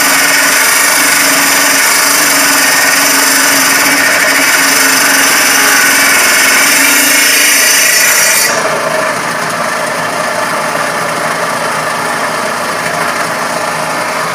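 Homemade table saw cutting a tenon in a board held upright in a sliding jig: a loud, steady cutting noise over the motor's tones, which stops suddenly about eight and a half seconds in as the cut ends, leaving the saw running free and quieter.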